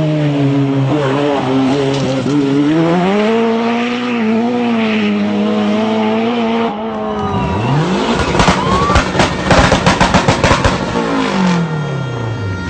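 Rally1 rally cars' turbocharged four-cylinder engines at full throttle: first a steady, high-revving note. After a cut, a car's engine note rises, gives a rapid run of loud cracks and bangs for about three seconds, then falls away as the car passes.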